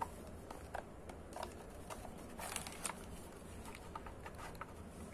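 Hard black plastic Olympus camera box being handled and opened: light scattered clicks and taps, with a couple of sharper clicks about two and a half seconds in as the lid comes open.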